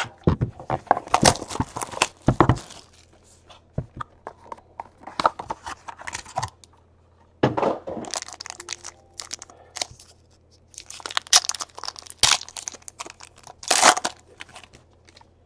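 A Topps Tier One foil trading-card pack being crinkled and torn open by hand, along with the handling of its small cardboard box. It comes as several bursts of crackling rustle with short pauses between them.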